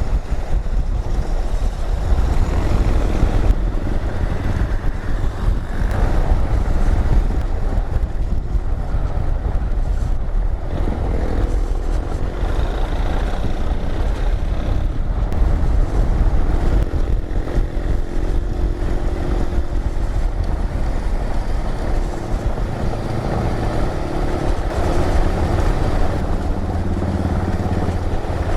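Motorcycle engine running while being ridden, with steady road and wind noise.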